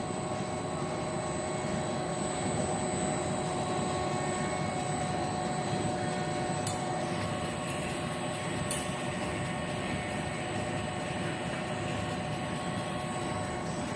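Corn puff snack extruder line running steadily: a continuous mechanical drone with several steady whining tones over it, and two faint ticks about seven and nine seconds in.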